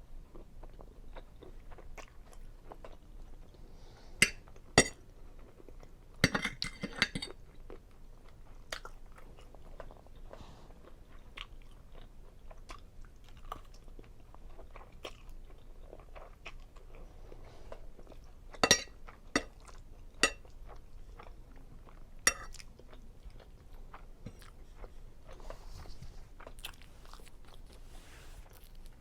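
Close-miked chewing of seafood alfredo linguine, with scattered sharp clicks, a small cluster of them about a third of the way in and several more past the middle.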